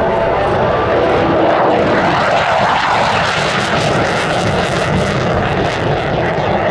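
USAF F-15C Eagle fighter jet flying past, the loud roar of its twin turbofan engines sweeping down in pitch as it goes by, about two seconds in.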